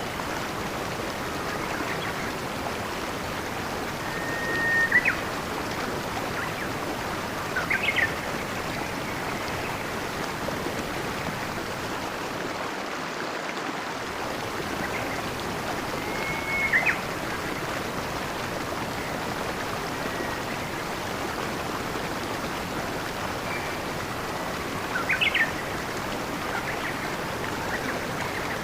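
Steady rush of flowing stream water, with a songbird calling now and then over it: short whistled notes with quick upward sweeps, about four times.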